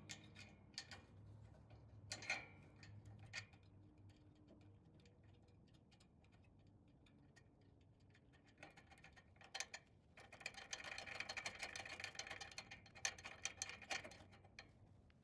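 Faint small metal clicks from the discharge chute lock cable and its nut being refitted on a snowblower's chute bracket. About ten seconds in comes a run of rapid ticking that lasts some four seconds.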